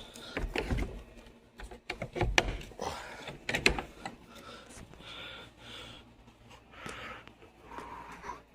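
A few sharp knocks and clicks, the loudest about two and a half and three and a half seconds in, as hard parts of the car are handled. In the second half comes a person's heavy breathing, several breaths in a row.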